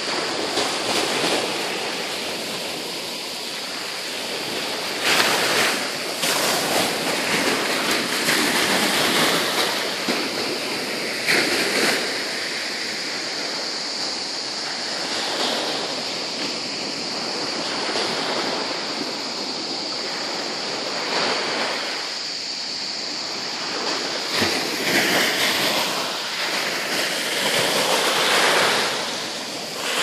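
Small Mediterranean waves breaking and washing up a pebble-and-sand shore, swelling in irregular surges of surf every few seconds.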